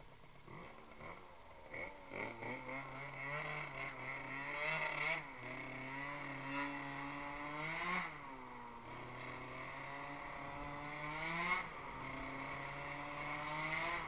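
Gilera NRG scooter's two-stroke engine, running on a newly fitted piston ring, pulling away and riding. The revs climb and fall back three times.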